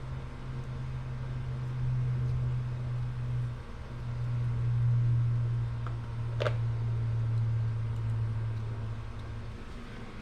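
A steady low mechanical hum, like a fan or small motor running, briefly dipping just under four seconds in and easing off near the end, with one sharp click about six and a half seconds in.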